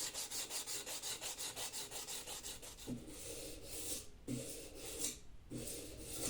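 Hand abrasive work on an axe: quick back-and-forth rubbing strokes, about five a second, then three slower, longer strokes in the second half.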